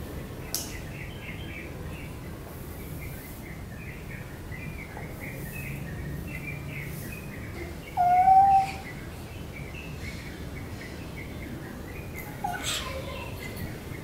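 A Bengal cat, held wrapped in a cloth bag to be given medicine, gives one short loud meow about eight seconds in and a weaker, falling meow near the end. Small birds twitter steadily in the background through the first half.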